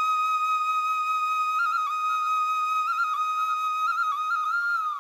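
Background music: a slow solo flute melody. It holds one long note, then moves on with quick ornamental turns around it.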